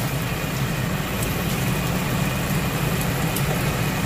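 Steady low hum with an even hiss over it, from a stovetop frying pan of salted water heating with bok choy stems in it.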